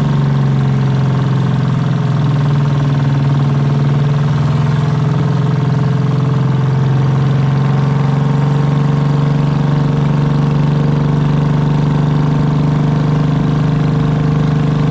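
Inboard engine of a narrow motorized river boat running steadily at cruising speed, a constant low hum, with water rushing and splashing along the hull.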